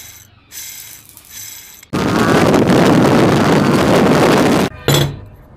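Bicycle freewheel's ratchet pawls clicking in two short runs as the freewheel wrench is turned. Then loud wind rushing over the microphone of a moving motorcycle for about three seconds, cutting off suddenly.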